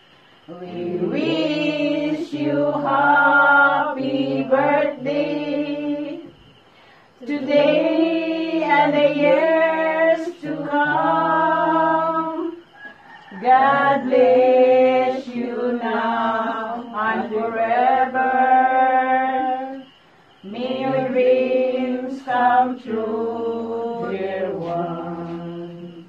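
A group of voices, mostly women, singing a hymn together in four long phrases with short breaks between them.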